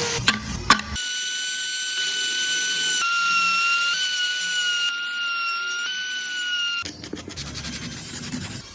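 A small high-speed rotary carving tool whining steadily on wood, its pitch dipping slightly now and then as it bites. It is preceded by a few sharp clicks, and near the end gives way to a rougher rasping noise.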